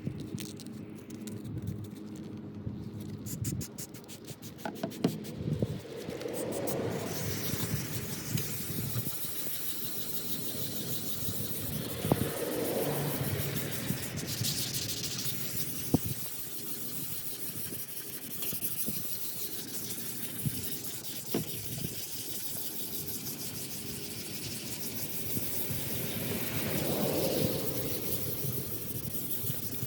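Sandpaper rubbing and scraping on a plastic headlight lens, a steady rough hiss that swells and fades every few seconds, with occasional sharp ticks.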